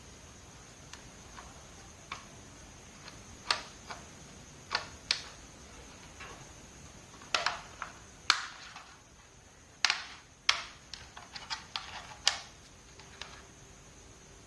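Irregular small clicks and taps of hands handling laptop parts while fitting RAM. They come one or two at a time at first, then in a quick run of clicks about ten to twelve seconds in.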